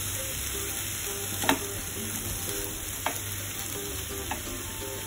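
Diced corn, carrot, zucchini and onion sizzling in oil in a non-stick pan while being stirred with a metal spoon. The spoon knocks sharply against the pan about a second and a half in, with lighter taps later.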